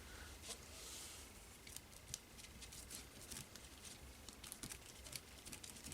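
Faint rustling and scattered small ticks of a book page being handled and pressed down onto wet gel medium.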